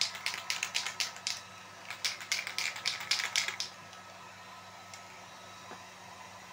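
Aerosol spray-paint can being shaken hard, its mixing ball rattling in quick clicks, about six or seven a second. There are two bouts of shaking. The second starts about two seconds in and stops just short of four seconds.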